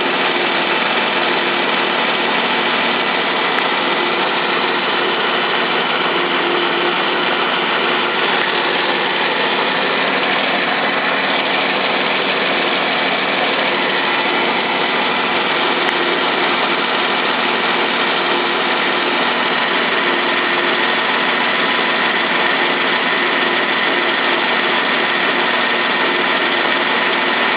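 A 2012 Jeep Wrangler's 3.6-litre Pentastar DOHC V6 idling steadily, still warming up after a cold start.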